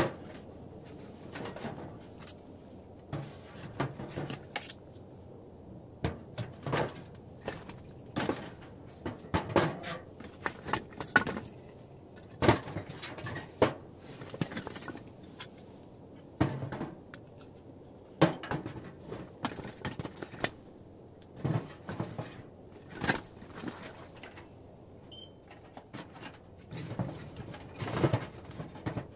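Split firewood being loaded into a small metal box stove: irregular knocks and clatters of wood against the firebox.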